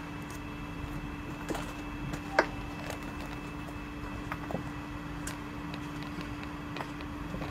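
Steady low hum with scattered small clicks, and one sharper click about two and a half seconds in.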